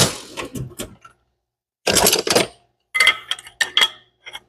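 Steel wrenches clinking and clattering against each other and on metal as they are handled, in several short bursts of clinks with brief pauses between.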